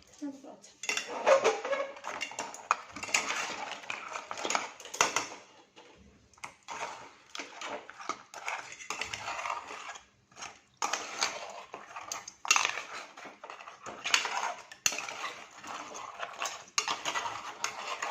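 A metal spatula stirring and tossing crabs through thick masala in a pan, with repeated scraping and clattering against the pan, in bursts with short pauses.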